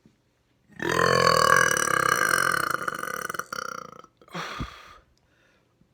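A person burping on purpose: one long, loud burp of about three seconds, then a short second burp.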